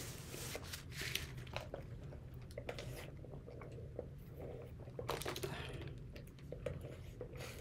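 Faint close-up eating sounds: chewing and crunching on breaded fried chicken wings, with small mouth clicks, and a sip through a drinking straw about midway.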